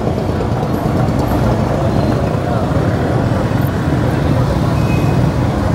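Steady low rumble of busy street traffic.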